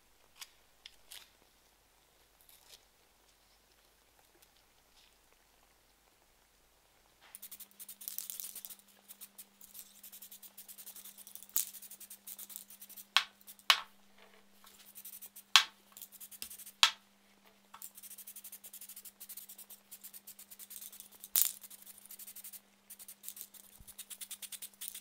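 A few faint clicks, then an aerosol can of acrylic spray paint spraying in long hissing bursts with short pauses, with several sharp clicks among the hiss and a faint steady hum.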